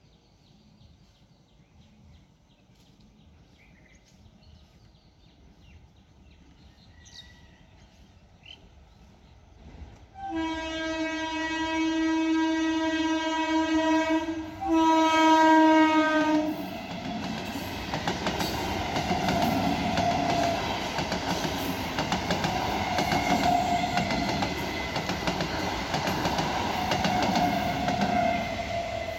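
EMU electric local train sounding its horn in two long blasts, the first about four seconds and the second about two and louder. It then passes through the level crossing at speed with a continuous rush and clatter of wheels on rails.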